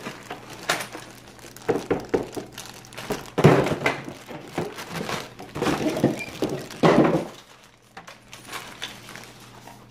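Plastic toy parts and packaging being handled: irregular knocks and clatter, with some crinkling.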